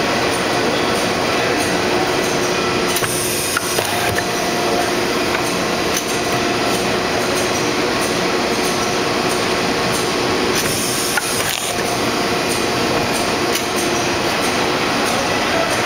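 Steady industrial machine noise from an automatic envelope-blank cutting press and the running plant around it: an even din with a few steady hums and faint ticks, and no single loud stroke standing out.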